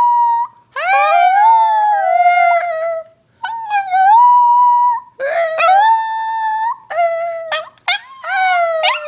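A puppy howls along with a woman howling with her: a run of long, wavering howls that rise and then slide down in pitch, broken by short pauses.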